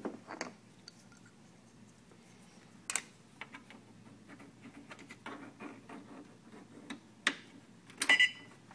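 Plastic treadmill safety key being handled and pushed into its slot on the console: soft rattles and a few sharp clicks. Near the end the key clicks into place and the console gives a short beep as it powers up.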